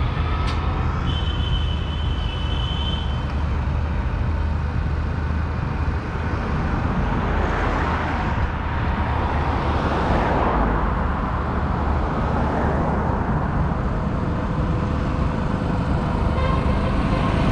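Tractor engines running as a line of tractors drives past, with a steady low hum and a louder swell about eight to ten seconds in as one passes close. A short high-pitched tone sounds about a second in.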